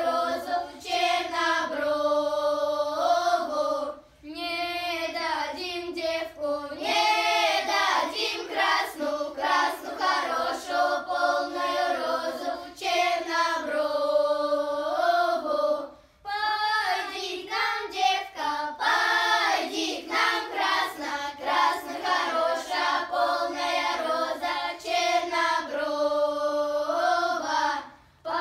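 A children's folk choir of girls singing a Russian folk song a cappella, with no instruments. The singing runs in long phrases with short breaks about four seconds in and again about sixteen seconds in.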